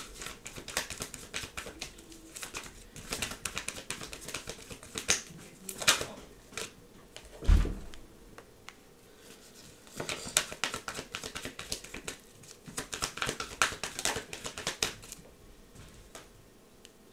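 Tarot cards being shuffled by hand: two spells of quick, papery clicking and flicking, with a single low thump about seven and a half seconds in.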